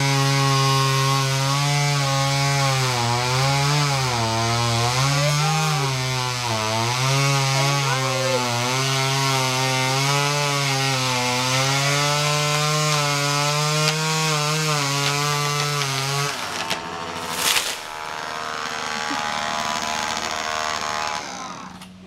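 Chainsaw cutting through a tree trunk, its pitch dipping and rising under load, then stopping about 16 seconds in. A sharp crash follows, then a rushing noise as the tree comes down.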